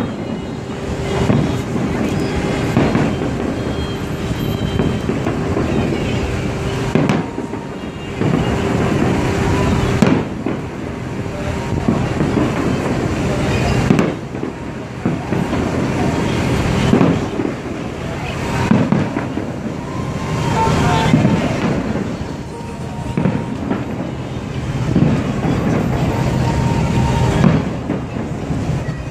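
Aerial fireworks display: shells bursting overhead in a continuous run of bangs, with sharper, louder booms every few seconds.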